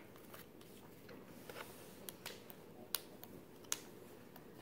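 Trading cards and a soft plastic card sleeve being handled: faint rustling with a few sharp little clicks scattered through.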